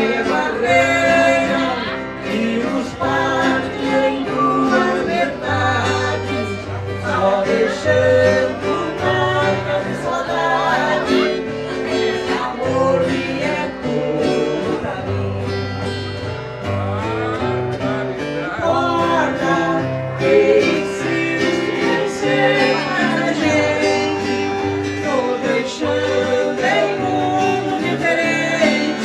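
Live viola caipira music: the Brazilian ten-string guitar is strummed and picked over a steady bass line, with a voice singing at times.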